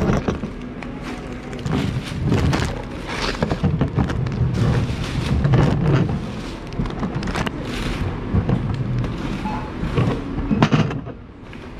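Handling noise of groceries being packed into a plastic carrier bag: crinkling plastic and packets knocking against a steel checkout counter, in irregular clicks and thuds. A hard thump right at the start as the camera is flung down.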